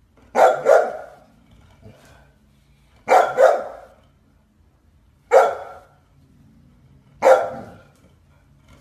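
Golden retriever barking: two quick double barks, then two single barks a couple of seconds apart.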